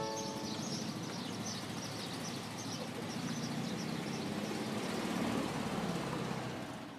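Outdoor ambience after the song's last guitar chord dies away: a vehicle engine running on the road, with birds chirping over it again and again. It fades out at the end.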